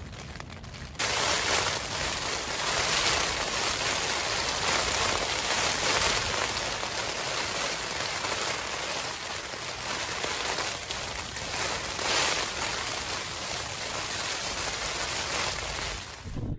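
Rain falling on the Vango Banshee 200 tent's flysheet, heard from inside the tent: a loud, steady hiss that starts abruptly about a second in, swells and eases a little, and cuts off just before the end.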